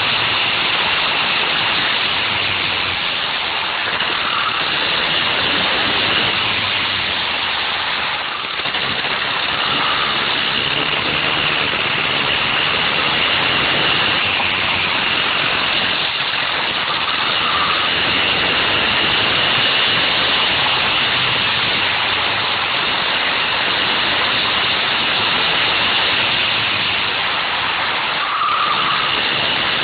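Go-kart with a Wankel rotary engine running at speed round the track, heard from on board as a loud, steady, noisy drone. It dips briefly about eight seconds in.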